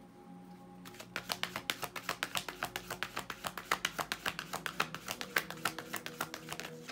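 A tarot deck being shuffled by hand, starting about a second in: a quick, even run of card clicks, about eight a second.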